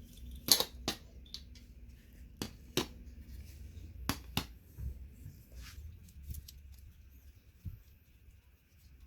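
A hand cutting tool snipping down the plastic posts that support the circuit board inside a remote control's case: a series of sharp clicks, the loudest in three close pairs in the first half, with fainter snips later.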